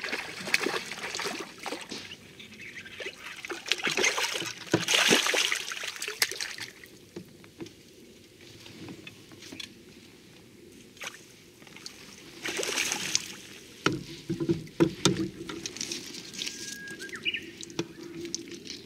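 A hooked herabuna (Japanese crucian carp) splashing and thrashing at the surface while it is played and drawn into a landing net, with water sloshing in irregular bursts, strongest about four to six seconds in and again around thirteen to fifteen seconds.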